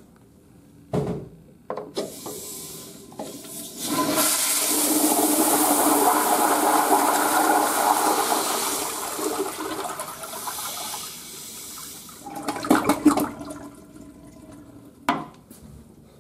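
1971 Crane Placidus toilet with an exposed chrome flush valve, flushing hard. A short knock about a second in, then a loud rush of water that builds over a few seconds, holds, and eases off, with a burst of gurgling near the end of the flush and a sharp knock shortly after.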